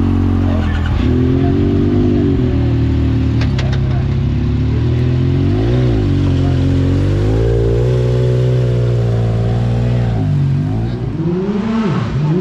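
Yamaha YXZ1000R side-by-side's three-cylinder engine running hard under load. Its pitch dips and climbs again about six seconds in, holds high, drops near the end and revs back up.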